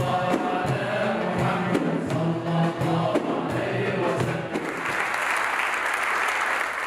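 A male chorus singing Islamic devotional praise of the Prophet (inshad) to keyboard and frame-drum accompaniment, giving way about four and a half seconds in to audience applause.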